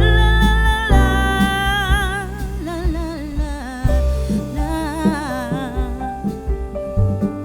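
Background song with a woman's voice holding a long wavering note, then singing on over bass and keyboard accompaniment.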